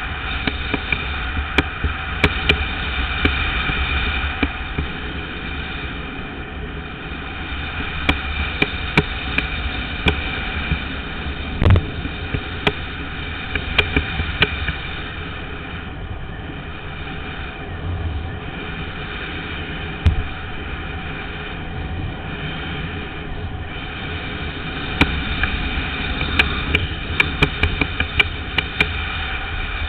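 Longboard wheels rolling fast over asphalt: a steady rolling rumble and hiss, with frequent sharp clicks and a heavier knock about twelve seconds in.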